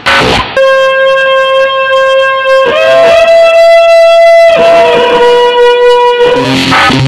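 Rock music soundtrack: a long held lead note that slides up in pitch near the middle, holds, then slides back down. Guitar and drums play briefly just before and just after it.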